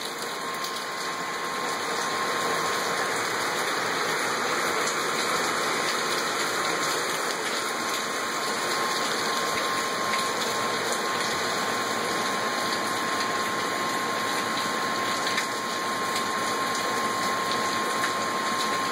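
Steady heavy rain pouring down, with water gushing from roof downspouts.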